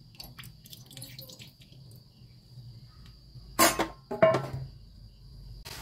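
Metal cookware clanking twice, loud and sharp, about three and a half and four seconds in, after a few faint clicks. A steady high insect chirr carries on underneath.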